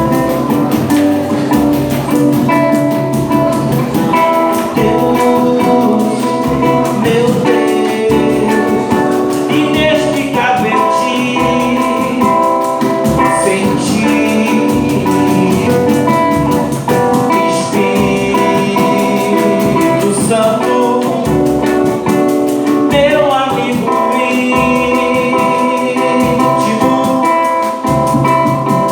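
Gospel music: a group singing with guitar accompaniment.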